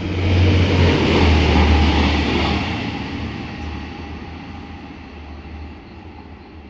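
Stadler GTW diesel multiple unit passing at about 140 km/h: a loud rush of wheels and air that peaks in the first two seconds, with the low engine drone dropping in pitch as it goes by, then fading away.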